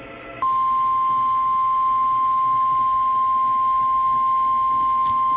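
NOAA Weather Radio 1050 Hz warning alarm tone: one steady, loud beep-like tone that starts about half a second in and holds without a break. It signals that a new weather warning broadcast is about to follow.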